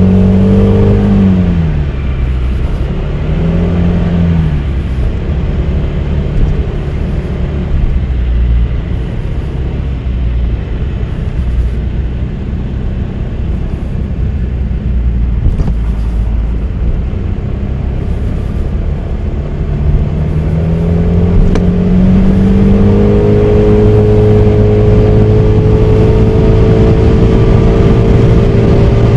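Honda Forza 300 scooter's single-cylinder engine heard while riding. The engine eases off about a second in and runs low under road and wind noise through the middle, then climbs in pitch around twenty seconds in and holds a steady cruising note near the end.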